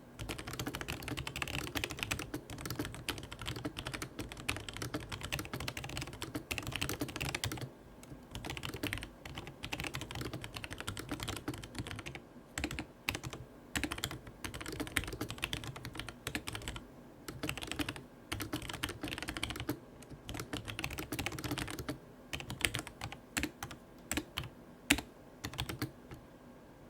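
Typing on a Logitech G Pro TKL mechanical keyboard with Romer-G switches: fast continuous key clicks and clacks, thinning to scattered single keystrokes with pauses in the last few seconds.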